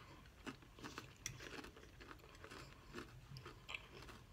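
A person chewing a mouthful of food close to the microphone: faint, irregular small crunches and wet mouth clicks.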